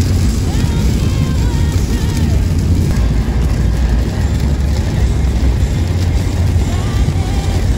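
Steady low rumble of a pickup truck on the road, heard inside the cabin, with faint music under it.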